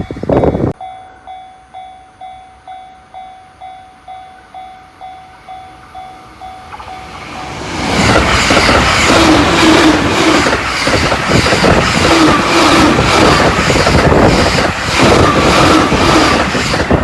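A Japanese level-crossing warning bell rings in a steady repeating pattern, about two strokes a second. About seven seconds in, a Joban Line train rushes up and passes through the crossing at high speed, loud, with a rhythmic clatter of its wheels over the rail joints.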